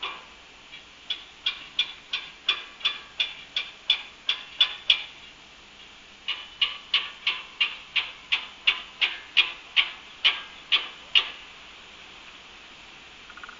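Repeated hammer strikes, about three a second, in two runs of a dozen or more blows with a brief pause between them. Each blow is sharp and rings briefly.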